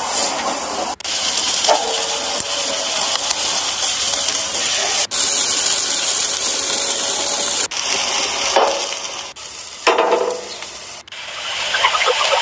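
Chicken drumsticks sizzling on a hot steel grill grate: a steady hiss that breaks off abruptly several times.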